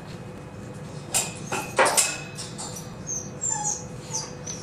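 A dog whimpering: several short, high, thin whines in the second half. Before them come a few brief sharp rustles and taps, as cotton warp threads are handled and knotted.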